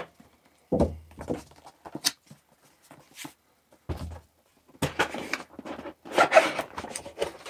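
Cardboard packaging being handled and opened. Two dull thumps as the box is set on the table, about a second in and about four seconds in, then scraping and rustling of cardboard as the box is opened.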